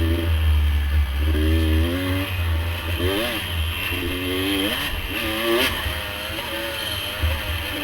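Off-road dirt bike or ATV engine running under riding load, its pitch rising and falling over and over as the throttle is worked, over a steady low rumble.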